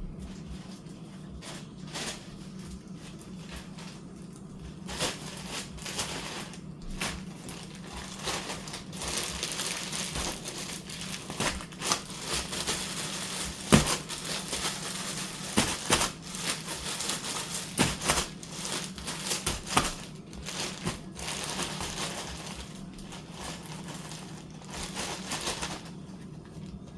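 Crispy fried chicken wings crunching and crackling, with many sharp irregular cracks, over a low steady hum.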